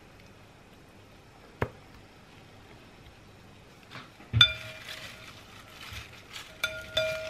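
Plastic salad servers tossing leafy salad in a bowl: the leaves rustle and the servers clink against the bowl, which rings briefly at each knock. The loudest clink comes about four and a half seconds in, with more near the end; a single sharp click sounds about a second and a half in.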